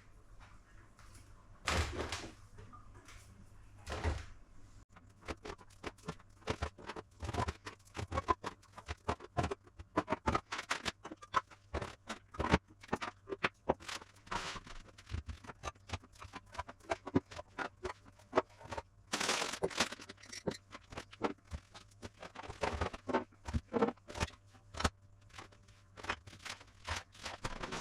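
Kitchen containers such as tins, jars and baskets being handled and set down on cupboard shelves: many irregular knocks, clinks and clicks, some louder than others.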